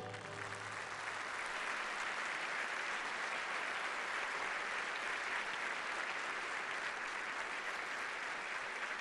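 A large audience applauding steadily, the clapping even and sustained, while the last orchestral chord dies away in the first second.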